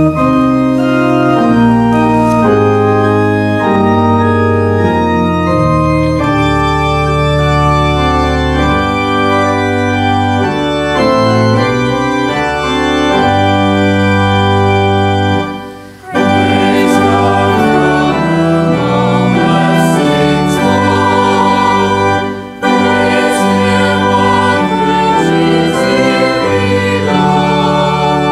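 Organ playing an offertory in slow, sustained chords, with a short break about halfway through before the playing resumes.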